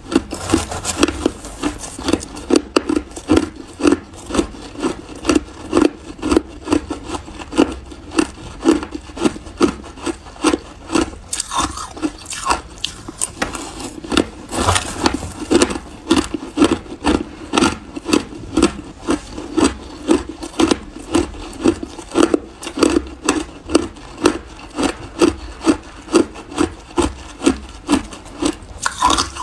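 Close-up chewing of a mouthful of shaved and crushed ice: crisp, even crunches at about two a second.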